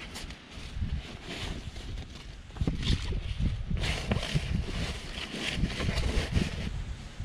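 Wind buffeting the microphone with a steady low rumble, over irregular rustling, scuffing and knocks as a fabric seat cover is pulled and tucked over a truck's rear seat. The handling gets busier and louder about two and a half seconds in.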